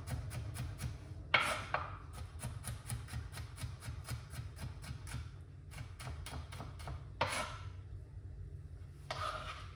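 Kitchen knife chopping bell peppers on a cutting board in quick, even strokes, about six a second. Three longer, louder scraping sounds break in: about a second in, past the middle, and near the end.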